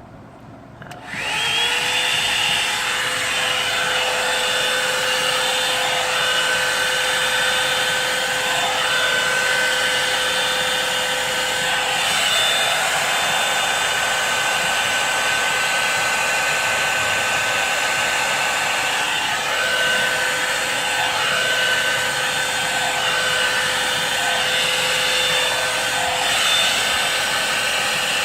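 A hot-air blow-dryer brush switching on about a second in, its whine rising quickly, then running steadily on its high setting with an even rush of air and a steady motor whine.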